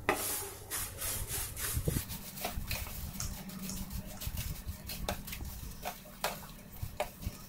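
Wooden spoon stirring dry puffed rice with masala and chopped vegetables in a stainless steel bowl: repeated, irregular scraping and rustling strokes.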